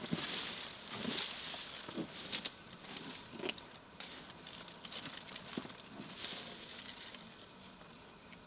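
Elephant bull feeding, with irregular faint snaps, crackles and rustles of branches and dry vegetation being pulled and broken, over a soft steady hiss.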